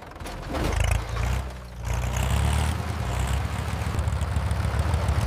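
Tractor engine running with a low, pulsing rumble. It dips briefly about a second and a half in, then runs on steadily.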